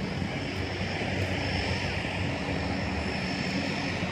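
Steady drone of a propeller aircraft's engine, holding an even pitch.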